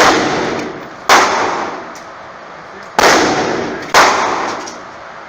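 Four gunshots at a shooting range, irregularly spaced about one to two seconds apart. Each is a sharp crack followed by an echoing tail lasting about a second.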